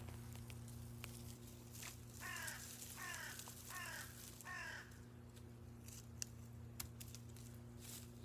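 A crow cawing four times in quick succession, each harsh call falling in pitch, with light clicks and rustles in between.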